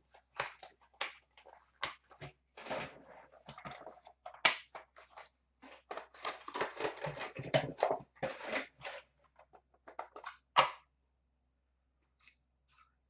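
A trading-card box being opened and unpacked by hand: rapid crinkling, tearing and rustling of plastic wrap and cardboard, with sharp clicks of hard plastic card cases. It stops a couple of seconds before the end.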